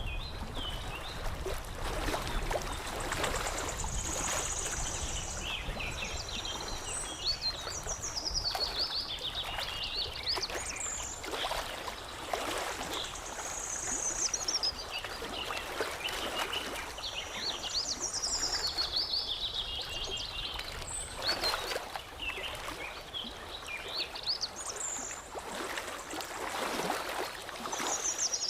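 Songbirds singing repeated high, quick chirping and trilling phrases over water lapping and trickling steadily.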